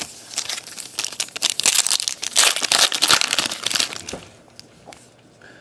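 Crinkling and tearing of a trading-card pack wrapper as it is opened and handled, a dense run of crackles that dies away about four seconds in.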